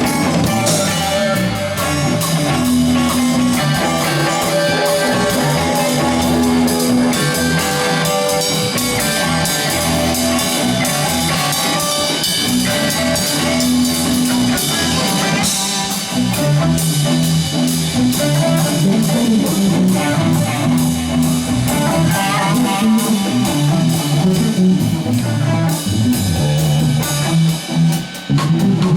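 A live band jamming: guitar over drum kit and bass guitar, with held pitched notes.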